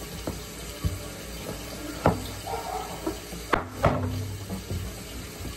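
Kitchen knife chopping raw vegetable pieces on a countertop: several sharp, irregularly spaced knocks as the blade strikes the counter.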